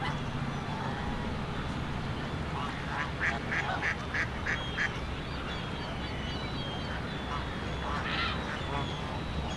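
A flock of Canada geese and other waterfowl calling on a lake, with a quick run of about six short calls a little after three seconds in and more calls near the end. A steady low rumble runs underneath.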